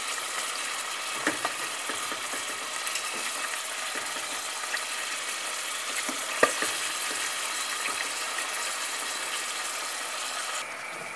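Chicken livers sizzling steadily in hot oil in a stainless steel pan. A few sharp clicks of a fork against the pan come as the pieces are turned, the clearest about six and a half seconds in.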